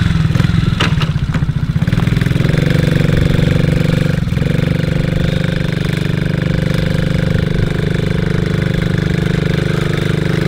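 Small single-cylinder engine of a cheap youth-size ATV running steadily, its note shifting a little about two seconds in, with one short click about four seconds in.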